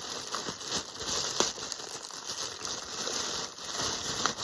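Package wrapping crinkling and rustling as it is handled, with small irregular crackles and clicks.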